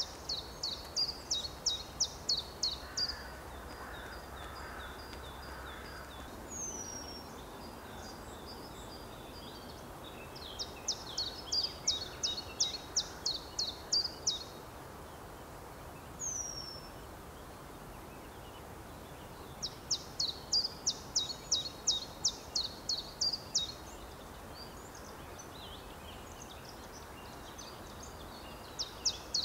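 Songbird singing in repeated bouts of quick, high notes, about three or four a second and each bout lasting three to four seconds, four bouts in all. Twice between bouts comes a single thin, high whistle that falls in pitch.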